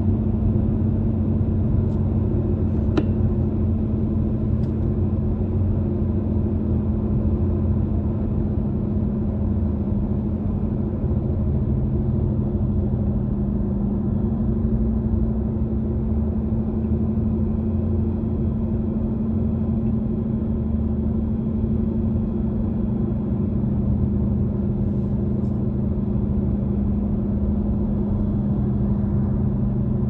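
Car driving at highway speed, heard from inside the cabin: a steady low rumble of road and engine noise with a constant low hum.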